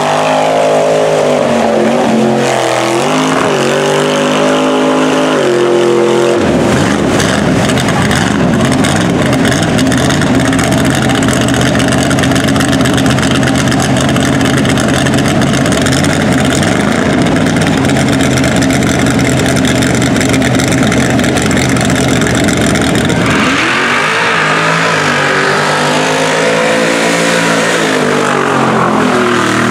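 Lifted Chevy pickup trucks' engines running at full throttle through a deep mud pit, revving up and down as the tires churn and throw mud. The sound changes abruptly about six seconds in to a harsher, denser engine-and-spray noise, then back to rising and falling revs near the end.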